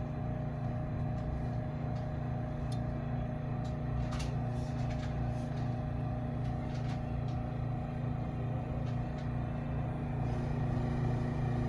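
Intertherm mobile home furnace running: its draft inducer motor hums steadily, with a few faint ticks.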